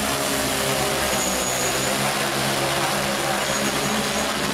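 Large electric multi-rotor crop-spraying drone in flight close by: its propellers give a loud, steady buzzing drone with several held tones.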